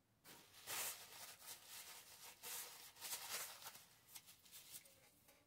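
Paper being handled and rustled, a string of short, soft swishes, the loudest about a second in and again a little after three seconds.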